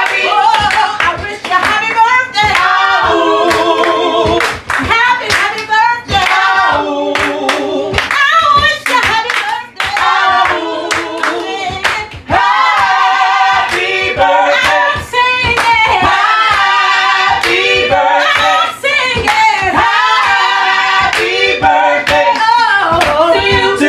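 Gospel singing by a group of voices over a steady handclap beat, about two claps a second.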